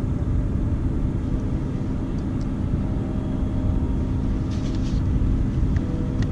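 Wind buffeting the open-water camera microphone: a steady low rumble, with a few faint ticks about four and a half seconds in.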